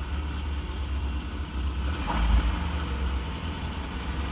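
Mazda E2000 van's four-cylinder engine, carburettored and converted to LPG, running with a slight growl, its revs raised a little about two seconds in. It runs evenly without a misfire now that the leaking MCV on the carburettor is dealt with.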